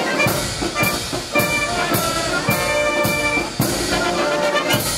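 Wind band of brass and clarinets playing held notes over a drum beat about twice a second.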